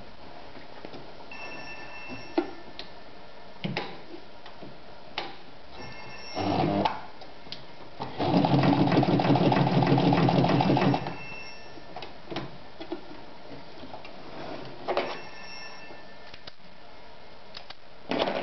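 Meister 110 sewing machine sewing through a leather strap: a short burst of stitching, then a steady run of about three seconds, a fast even stitching rhythm over the motor's hum. Light clicks and rustles of the leather being handled come before and after.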